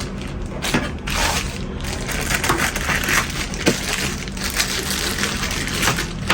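Packaging being handled by hand during unpacking: continuous rustling and crinkling, broken by many small clicks and knocks.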